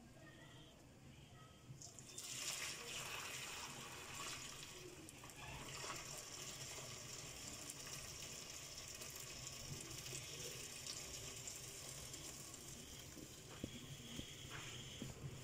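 Boiled sella rice and its hot cooking water pouring from a large aluminium pot into a steel colander in a sink. It starts as a gush about two seconds in and settles into a steady watery hiss as the rice is drained.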